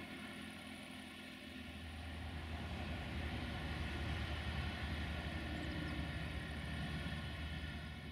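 Engine drone of an unseen motor vehicle, swelling for a few seconds and then easing off.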